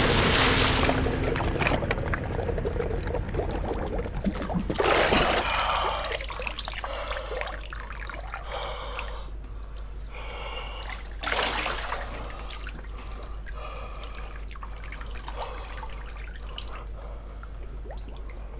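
Water pouring and trickling, with soapy splashing, over a steady low hum. Louder gushes come about five seconds in and again a little past the middle.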